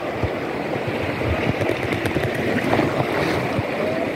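River water rushing over rocks in shallow rapids: a steady churning rush of noise.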